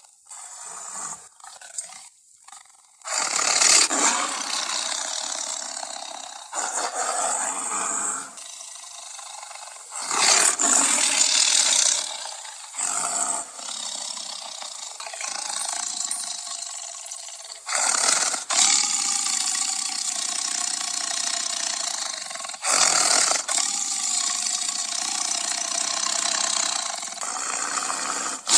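Made-up Ceratosaurus roar sound effects: a string of long dinosaur roars, each lasting several seconds, with short breaks between them.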